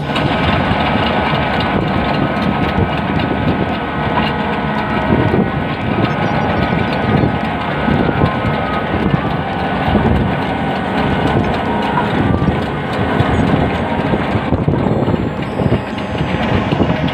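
Amphibious excavator's engine running steadily.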